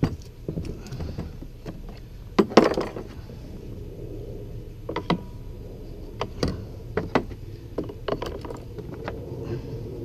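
Scattered plastic clicks and knocks from a Ridgid NaviTrack II line locator being handled with gloved hands, the loudest knock about two and a half seconds in.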